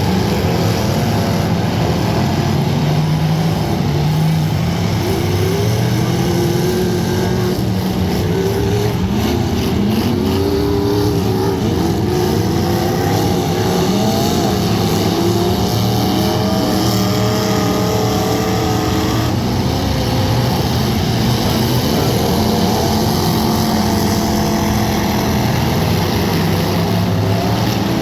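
Several car engines running and revving at once, their pitches rising and falling over one another, with a few sharp knocks around ten seconds in.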